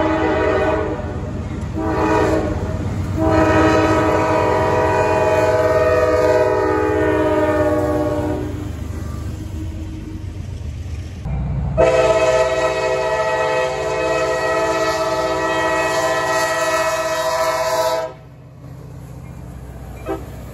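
Diesel freight locomotive's air horn sounding a chord: three short blasts, then a long one, then after a pause another long blast that cuts off sharply. The low rumble of the passing train runs underneath.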